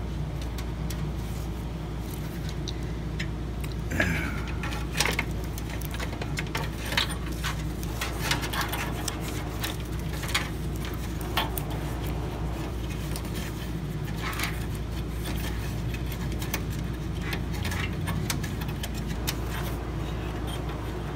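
Scattered small clicks and rattles of a power-switch cable and its plastic connector being handled and fed down through a metal desktop computer case, over a steady low hum.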